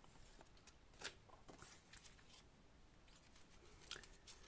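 Near silence, with a few faint brief rustles and ticks of paper banknotes being handled.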